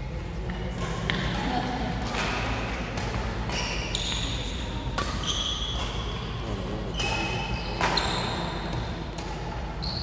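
Badminton rally: the shuttlecock is struck by rackets again and again, sharp cracks roughly once a second, with short high squeaks of shoes on the court floor.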